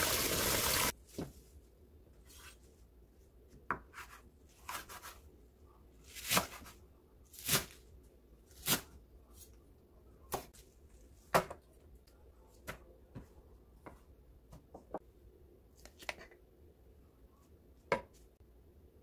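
Kitchen tap water running, shut off about a second in; then a knife cutting garlic chives on a wooden cutting board, single chops at an uneven pace of roughly one a second.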